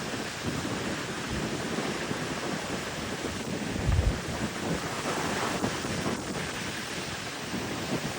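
Ocean surf washing up a beach, with wind buffeting the microphone; a strong gust hits the microphone as a heavy low thump about four seconds in.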